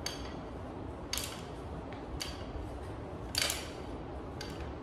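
Cable machine weight stack clinking once per rep during triceps pushdowns: five short metallic clinks with a slight ring, about a second apart, the fourth the loudest.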